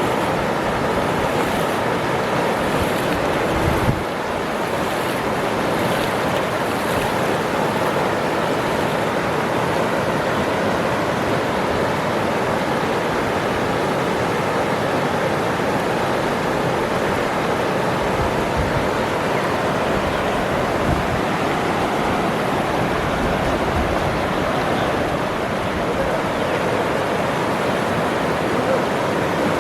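Waterfall rushing, a loud, steady wash of falling water.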